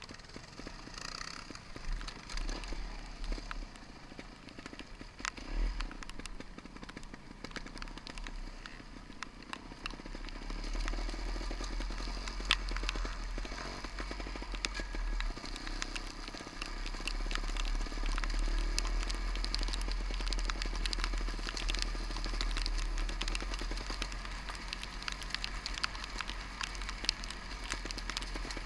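Trial motorcycle engine running, heard through an onboard camera, with a steady low rumble and many small clicks and taps from rain and mud hitting the camera. It gets louder from about ten seconds in.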